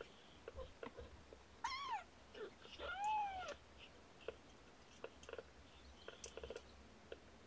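Young kittens mewing: a short wavering cry that falls in pitch about two seconds in, then a louder, longer high cry that rises and falls a second later, with small soft clicks and rustles around them.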